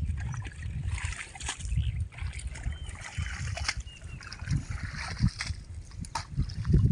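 Water and mud sloshing and splashing as hoes and a shovel dig through a flooded drainage ditch and workers wade in it, with scattered scrapes and knocks over an uneven low rumble.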